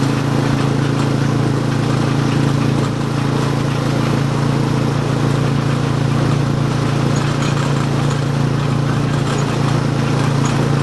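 A running motor's steady drone: a constant low hum with a hiss over it, unchanging in pitch and level.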